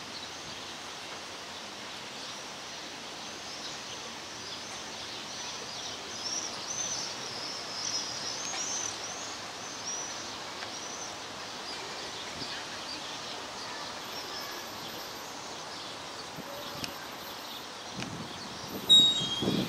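Small birds chirping and twittering over a steady hum of outdoor background noise, the chirps busiest in the middle. Near the end a sudden louder noise breaks in with a sharp peak.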